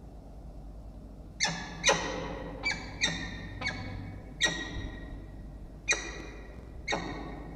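Peregrine falcons calling during pair bonding: eight short, sharp calls, spaced irregularly, each starting abruptly and fading quickly.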